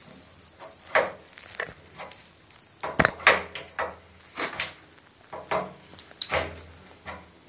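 Metal wrench clicking and scraping on a brass ball valve and its threaded fitting as the valve is tightened, a series of irregular sharp clicks and knocks.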